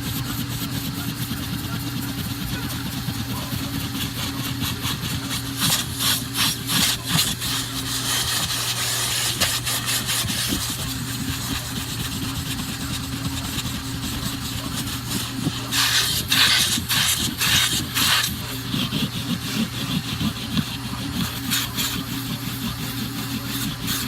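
Vacuum cleaner motor running steadily, with two stretches of louder hiss and rattling clicks as the nozzle pulls debris up from the car's carpet.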